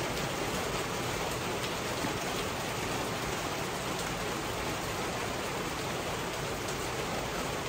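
Heavy rain falling steadily, an even hiss of rain on wet concrete.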